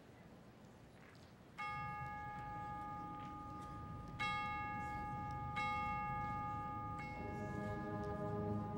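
Chimes (tubular bells) struck four times, each stroke ringing on. A low, held chord from the band comes in under them about seven seconds in.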